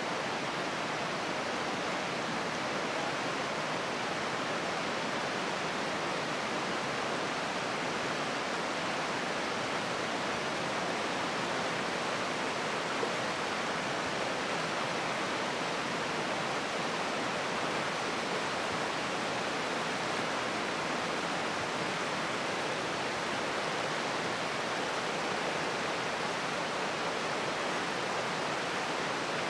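Taughannock Falls, a tall plunge waterfall, pouring into its pool below: a steady, unbroken rush of falling water.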